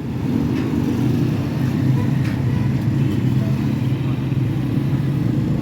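A motor vehicle engine running steadily at idle, giving a low, even hum.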